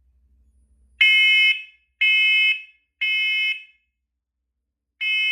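Smoke alarm sounding on its test button: three loud, high-pitched beeps about a second apart, a pause, then the three-beep pattern starting again near the end — the temporal-three evacuation signal.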